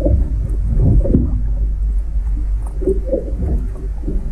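Muffled underwater sound from a camera under water: a steady low rumble with irregular short gurgles.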